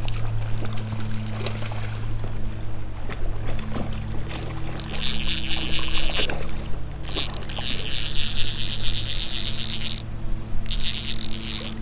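Fly reel ratchet clicking rapidly as line is reeled in on a hooked trout. It comes in three long bursts, the first starting about five seconds in, over a steady low drone of tones.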